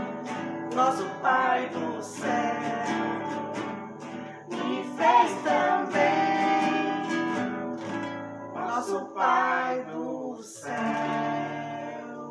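A woman singing to three strummed nylon-string classical guitars, the sung phrases separated by short pauses; the song fades out near the end.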